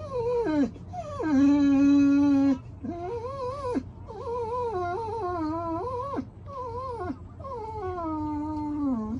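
German shorthaired pointer whining in a run of about six drawn-out, high-pitched cries that waver and slide down at their ends, the loudest held steady for about a second and a half. It is whining at a dog being walked past on the street.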